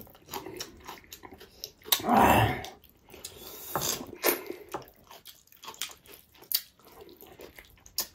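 Close-up eating sounds: wet chewing, lip-smacking and sucking on pickled pork feet, with many small clicks. A louder mouth sound about two seconds in.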